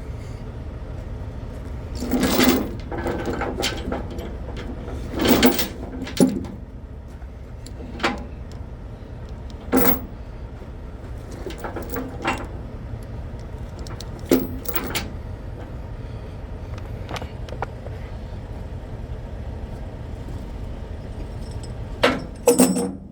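A steady low engine rumble underneath a series of sharp metallic clanks and rattles, about a dozen spread out irregularly, with a louder cluster near the end.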